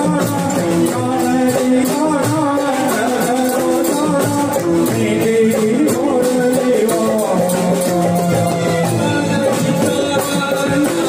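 Live Gujarati raas kirtan music: a keyboard melody over a steady beat from drums and hand drum, with shaker-like percussion.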